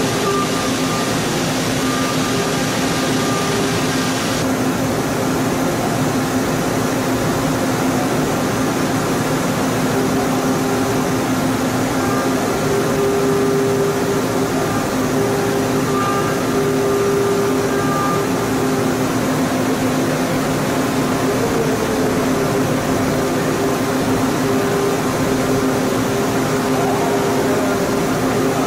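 CNC milling machine cutting a metal mold cavity with an end mill: a steady machine hum with held tones that come and go. The hiss on top drops away about four seconds in.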